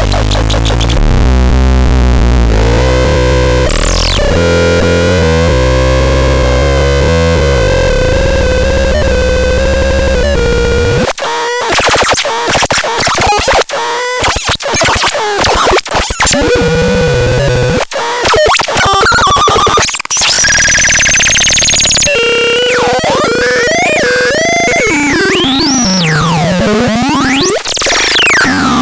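BaIOTEX 03 electronic noise synthesizer playing harsh, shifting electronic tones. Layered low drones with a held middle tone give way about eleven seconds in to rapid choppy stuttering, then to sweeping pitch glides that rise and fall.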